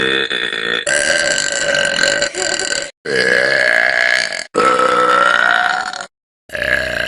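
A run of long, loud, drawn-out burps from young women, one after another. Each lasts about a second and a half to two seconds and breaks off abruptly before the next begins.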